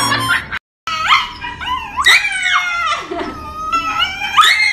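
Shiba Inu howling and yelping in a run of wails that rise and fall in pitch, protesting while its front paw is held for a nail trim.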